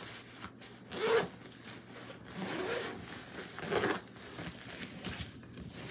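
Zipper on a full soft travel bag pulled closed in about three rasping tugs, with fabric rubbing.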